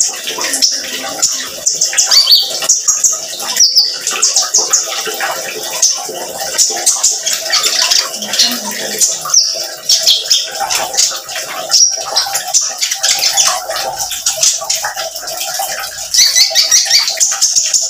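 Male Van Hasselt's sunbird (kolibri ninja) singing hard: rapid, high-pitched chattering trills, phrase after phrase with short gaps.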